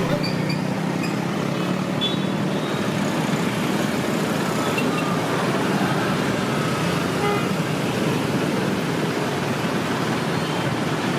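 Steady noise of busy road traffic, with a few brief horn toots.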